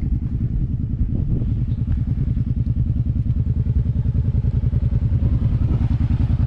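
Engine idling steadily, a low even rumble with a fast, regular pulse.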